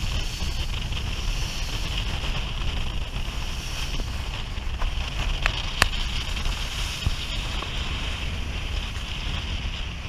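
Wind buffeting the microphone in a fluttering low rumble over a steady high hiss, with a few sharp clicks about halfway through.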